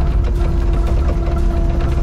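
Excavator's diesel engine running steadily under work, with a constant whine over the low rumble and scattered clicks and knocks from the machine.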